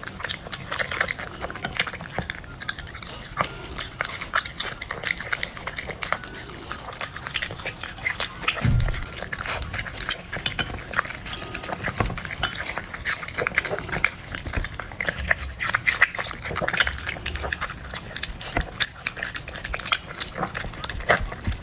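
Small dog eating wet, soft food from a plate: a close, continuous run of irregular chewing, smacking and lapping clicks, with a dull thump about nine seconds in.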